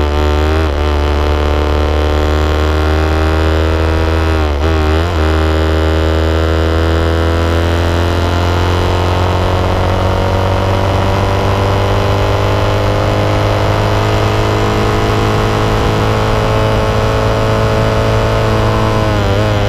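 Honda 90 motorcycle's single-cylinder four-stroke engine running hard at speed. Its pitch dips briefly near the start and again about four and a half seconds in, then climbs slowly and steadily as the bike pulls along the straight, with another brief dip near the end.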